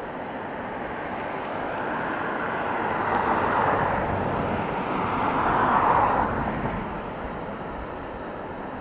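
Road traffic driving past on the bridge: tyre and engine noise swells up and fades away twice, as two vehicles pass.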